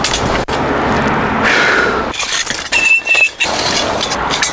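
The metal frame of a pop-up canopy tent rattling, clicking and squeaking as it is pushed up and extended, with a short high squeak about three seconds in. A car passing on the road adds a steady noise in the first half.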